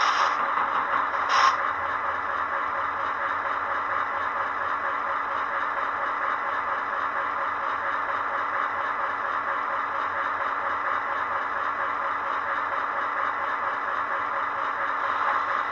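A model diesel switcher locomotive's sound decoder plays a recorded diesel engine idling steadily through its small onboard speaker. There are brief bursts of hiss near the start.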